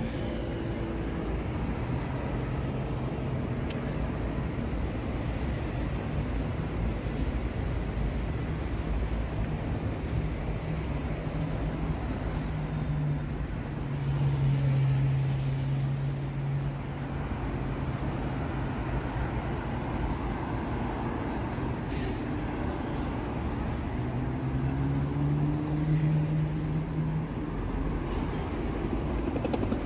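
Street traffic: motor vehicle engines running and passing. A louder engine comes up about halfway through and again near the end, its pitch rising the second time.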